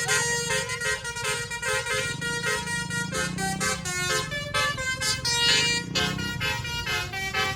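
Indonesian bus 'telolet' multi-tone musical horn playing a quick tune of short notes that keep changing pitch, over a low rumble.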